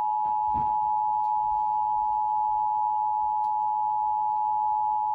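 Emergency Alert System attention signal: a steady two-tone alarm of 853 Hz and 960 Hz sounding together over the radio, announcing an alert message.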